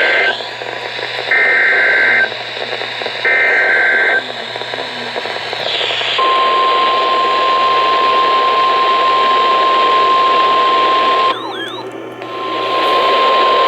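Emergency Alert System signal over a radio broadcast with static hiss: the SAME header's warbling digital data bursts, about a second each, sent in three repeats, then a steady single-pitch attention tone that breaks off for about a second near the end and comes back. The alert opens a Severe Thunderstorm Watch message.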